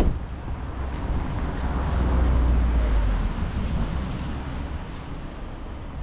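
A vehicle passing in street traffic: a low rumble that swells about two seconds in and fades away. A short knock right at the start.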